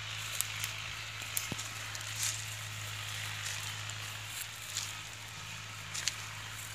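Bare footsteps on dry leaves and twigs, giving scattered crackles, over a steady low hum.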